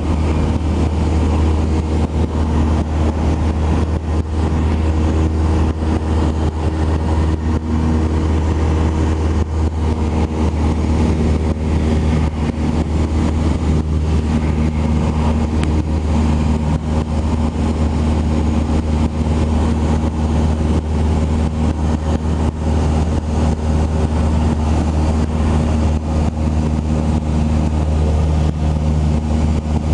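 Cessna 172 Skyhawk's piston engine and propeller droning steadily in cruise, heard inside the cabin as a loud, even low hum.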